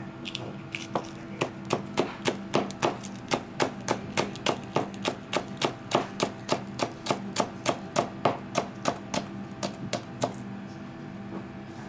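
Kitchen knife slicing a green onion on a plastic cutting board: an even run of chopping knocks, about three a second, that stops about a second before the end.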